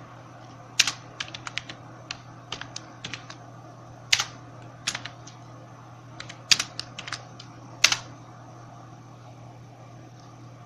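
Typing on a computer keyboard: irregular runs of key clicks with a few louder keystrokes, stopping about three quarters of the way through. A steady low hum runs underneath.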